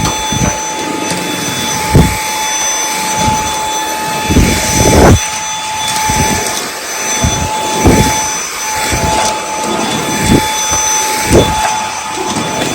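Dyson V8 cordless vacuum running on minimum power with the soft-roller (fluffy) head on a tile floor: a steady motor whine with thin high tones, broken every second or two by short low bursts as the head is pushed back and forth.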